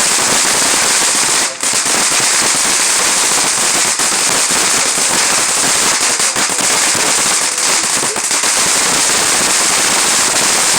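Ground fountain firework spraying and crackling steadily, a dense rapid crackle that dips briefly about a second and a half in.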